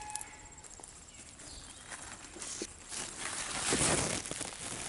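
Large cucumber leaves and vines rustling and crackling as a hand pushes through them, getting louder toward the end.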